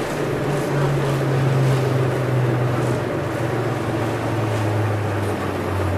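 81-717.5/714.5 metro train running in the tunnel, heard from inside the car: a steady rumble of wheels and tunnel noise. Under it a low motor hum slowly falls in pitch as the train slows.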